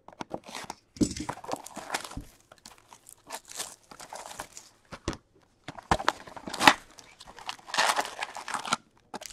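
Plastic shrink wrap being torn and crinkled off a cardboard hockey card retail box in irregular bursts, with a few sharp taps from handling the box.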